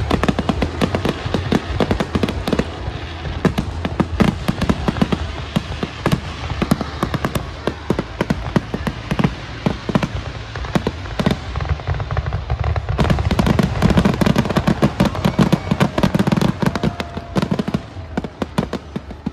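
Aerial fireworks display: a rapid, dense string of bangs and crackles with no break, turning heavier and deeper about two-thirds of the way through.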